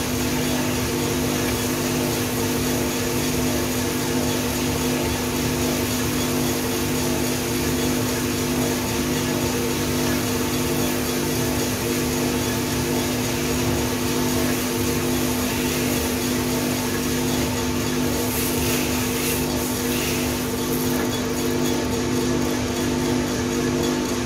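Small drum coffee roaster running with a steady mechanical hum from its drum motor and fan, the charge of Vietnamese peaberry beans churning in the drum early in the roast, before drying ends.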